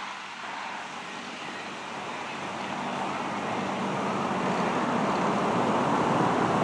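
A motor vehicle's engine and tyre noise growing steadily louder as it approaches across the parking lot, over a steady low hum.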